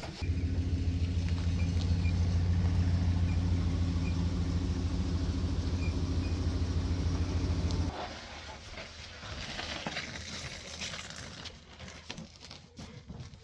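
A motor running with a steady low hum that cuts off suddenly about eight seconds in; faint clicks and handling noises follow.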